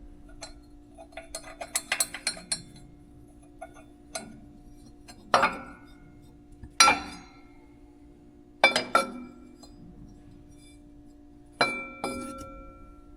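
Metal hand tools clinking and clattering as they are picked up and set down. A few light clicks come first, then several sharp clanks that ring on briefly.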